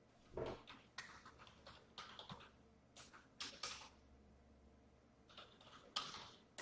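Faint typing on a computer keyboard in scattered short bursts of clicks and taps.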